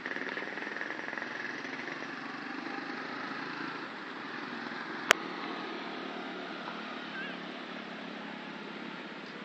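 Steady hum of a distant motorcycle engine over open-air background noise. A single sharp click about five seconds in is the loudest sound.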